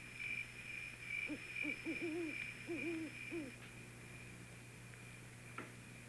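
An owl hooting: a quick run of about six short hoots in the first half, over a steady high-pitched tone and a low hum.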